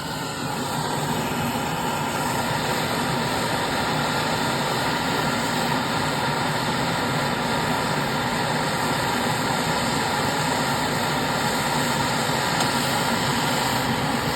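Gas brazing torch burning with a steady, loud hiss while brazing a refrigerator's copper line.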